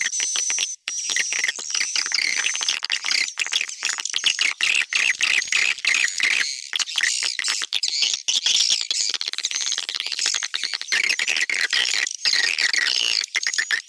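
Swiftlet lure-call recording of edible-nest swiftlets: dense, continuous high twittering chirps with rapid clicking running through it. It is a mixed track of the 'tarik' (attracting) and 'inap' (roosting) calls that swiftlet farmers play to draw birds into a nest house.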